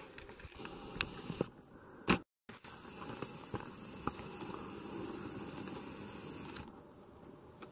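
Handheld camera handling noise: scattered knocks and rustling, with one sharp knock about two seconds in and a brief moment of dead silence right after it, then a steady outdoor hiss with a few faint clicks.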